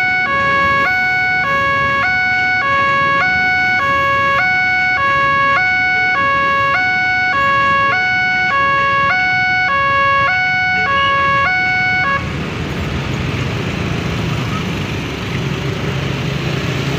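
Electronic warning siren of a railway level crossing, alternating between two tones about once a second over a steady high tone. It cuts off suddenly about twelve seconds in, leaving a broad rushing noise.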